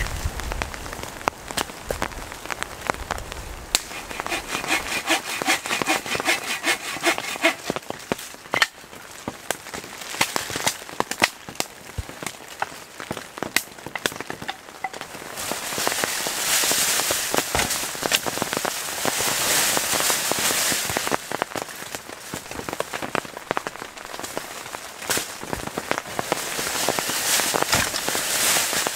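Rain pattering on plastic sheeting, mixed with the crinkling and rustling of the wet plastic being handled and scattered knocks and scrapes. The loudest rustling comes in long stretches in the second half.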